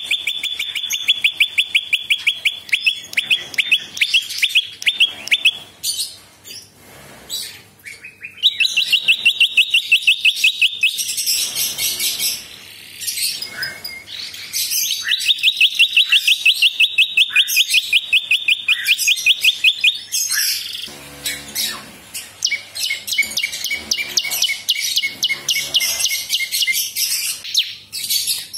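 Caged prinia (prenjak) singing: long, fast trills of sharp repeated notes, each run lasting a few seconds, with shorter chirps in between.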